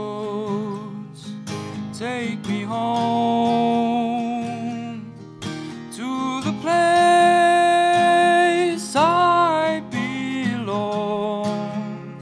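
A young male voice singing into a microphone over a strummed acoustic guitar. The voice holds long notes with vibrato, the longest and loudest in the middle.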